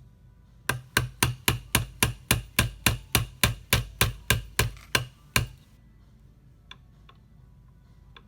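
A hammer tapping a roll pin punch about twenty times in a quick, even rhythm of roughly four strikes a second, driving the forward assist roll pin into an AR-15 upper receiver. A few faint clicks follow.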